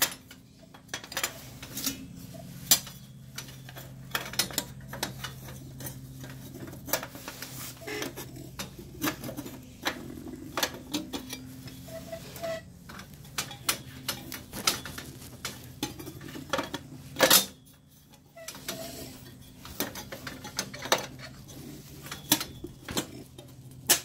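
Sheet-metal front panel of a Weil-McLain gas boiler being handled and fitted back on with its screws: irregular metallic clicks, taps and clanks, one louder clank about two thirds of the way in, over a steady low hum.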